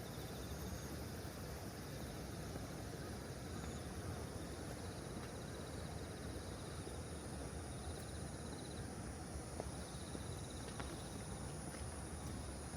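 Insects trilling steadily, one high continuous trill with a lower pulsing trill that comes and goes every few seconds, over a constant low rushing background.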